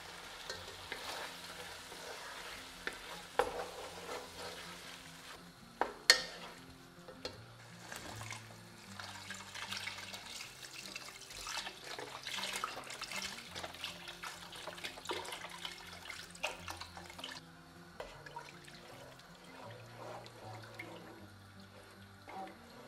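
Veal stew sizzling in a nonstick pan while tomato paste is stirred in with a metal spoon, with a sharp knock about six seconds in. Vegetable broth is then poured in with a splashing rush that stops about two-thirds of the way through, followed by quieter stirring of the liquid.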